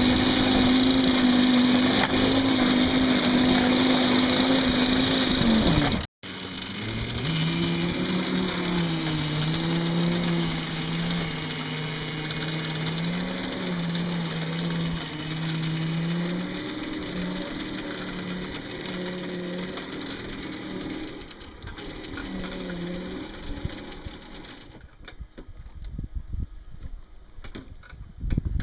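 Bulldozer engine running at a steady pitch, then after a cut about six seconds in its pitch rises and falls again and again as the load changes, fading away near the end.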